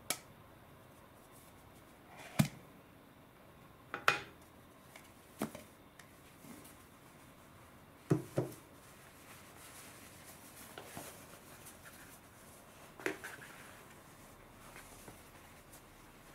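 Metal tin can being handled and opened: sharp metallic knocks and clicks every second or two from the tin body and its lid. In the second half, faint soft rustling of a cloth face towel being unrolled.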